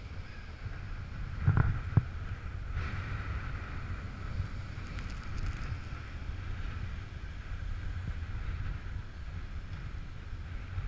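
Wind buffeting the microphone over surf breaking on rocks, with two short knocks about one and a half to two seconds in.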